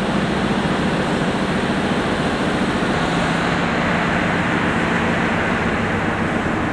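Steady machinery noise with a low, even hum underneath, unchanging throughout.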